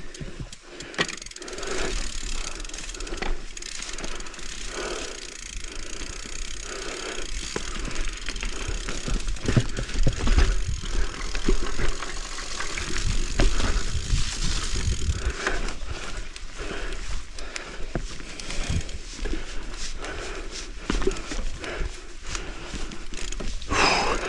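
Mountain bike riding down a rough dirt trail: tyres running over dirt and roots, with the bike rattling and knocking irregularly over the bumps.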